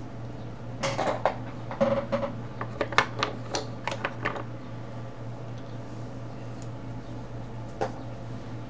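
Hard colouring supplies clattering and clicking as they are picked through and handled, a quick cluster of sharp clicks for a few seconds and one more click near the end, over a steady low hum.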